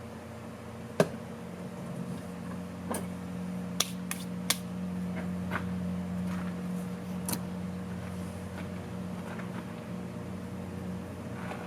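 Scattered sharp clicks and knocks of hands and tools working on hose clamps under a golf cart's hood, the loudest about a second in, over a steady low hum.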